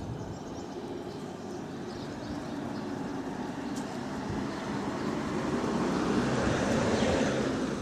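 Steady rumble of a passing vehicle, building slowly and loudest about seven seconds in, then easing off.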